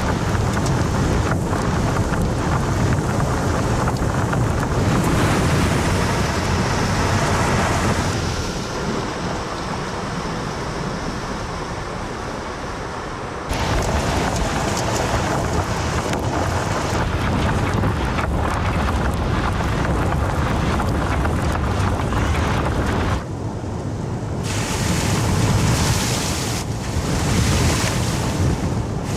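Steady rushing noise, mostly wind buffeting the microphone. Its level and character change abruptly about 8, 13 and 23 seconds in.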